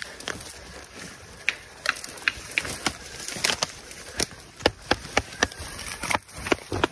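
Footsteps crunching through dry dead leaves and grass, with twigs snapping in quick, irregular cracks, as someone pushes on foot through woodland undergrowth.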